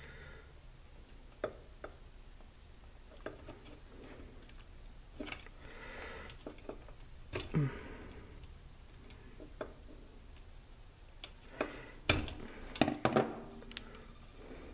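Scattered small clicks and taps of pliers and wire leads being handled inside a metal equipment chassis, with a cluster of sharper clicks about twelve seconds in. A faint low hum runs underneath.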